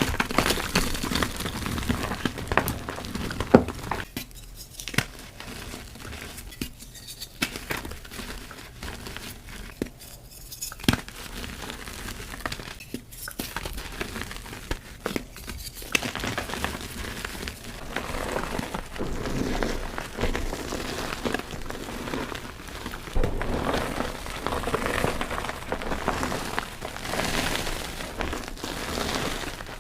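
Soft gym chalk reform blocks being crushed and crumbled by hand: dense, gritty crunching and crackling. It thins to scattered crackles from about four to sixteen seconds in, then thickens again.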